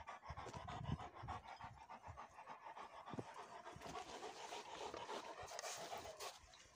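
Several large shepherd dogs panting: faint, quick, even breaths through open mouths.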